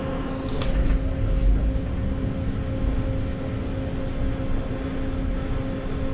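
Passenger-cabin noise of a moving Vityaz-M low-floor tram: a steady rumble from the running gear with a constant hum underneath, and a single sharp click just over half a second in.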